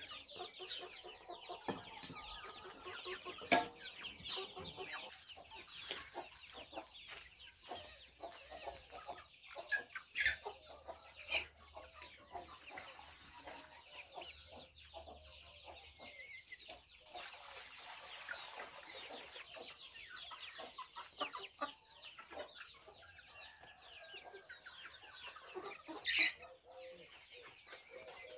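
A flock of domestic hens clucking, with many short overlapping calls throughout. A few sharp knocks stand out, about three and a half seconds in, around ten seconds and near the end.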